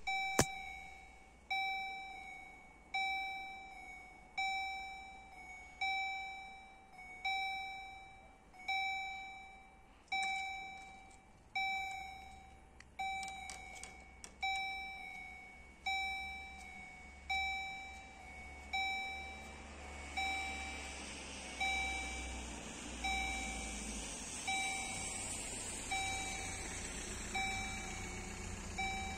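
EHL electronic level-crossing bell sounding the crossing warning: evenly spaced dings, each fading away, repeating about every second and a half while the boom barriers come down. The dings grow fainter in the second half as a rushing noise builds.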